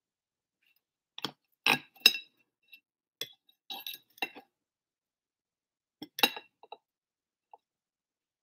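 Metal knife and fork clinking and scraping on a plate while cutting through toast. The clinks come in short, irregular bunches, the loudest about two seconds in and again about six seconds in.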